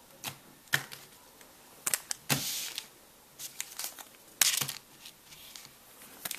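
Trading-card pack wrappers crinkling and being torn open in short, scattered rips, with the light click and slap of cards being handled.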